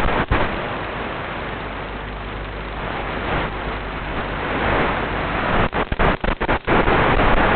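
Steady, harsh rushing noise from a low-quality camera microphone, typical of wind buffeting it, broken by several brief dropouts about six seconds in.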